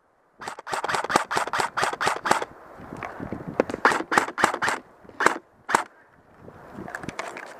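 Airsoft guns firing: a quick string of about a dozen sharp shots, roughly six a second, then more scattered single shots and short pairs.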